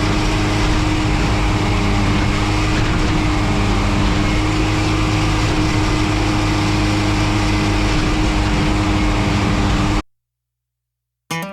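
Engine of a track maintenance machine running steadily at constant speed with a strong held hum, then cutting off suddenly near the end; after a brief silence, acoustic guitar music begins.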